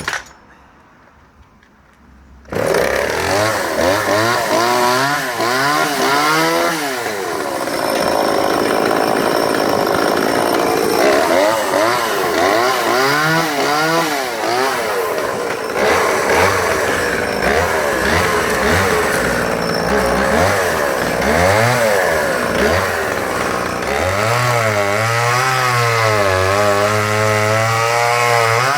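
Vintage Oleo-Mac 233 two-stroke chainsaw starting about two and a half seconds in, then running and revving up and down repeatedly as it cuts through small logs.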